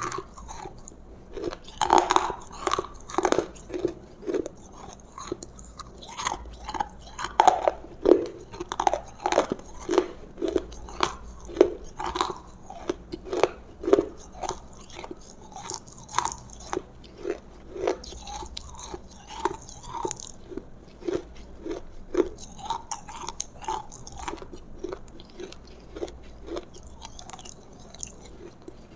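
Close-miked chewing of roasted food: wet, crunchy bites and chews repeating at about one to two a second, with a few louder crunchy bites early on.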